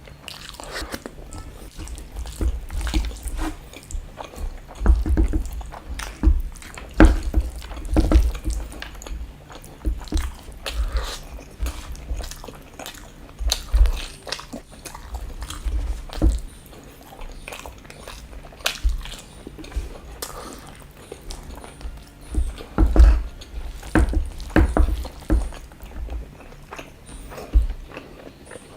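Close-miked eating: irregular bites and chewing of rice and chicken curry, with wet mouth clicks and smacks.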